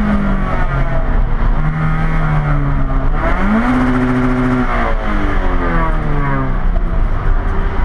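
Sports car's engine heard from inside its stripped, roll-caged cabin. The note sags, then rises quickly about three seconds in during a gear change, holds for a moment, and falls away again.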